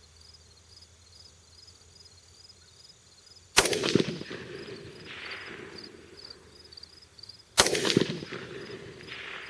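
Two rifle shots from an AR-15 chambered in 6mm PDK, about four seconds apart, each a sharp crack followed by a rolling echo for a second or two.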